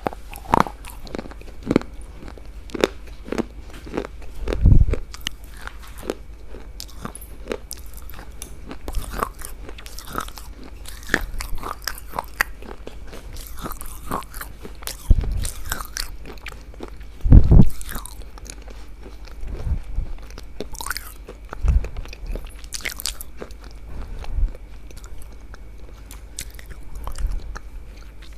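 Close-miked eating: irregular crisp crunches and bites with chewing in between, and a few heavier low thumps, the loudest about 17 seconds in.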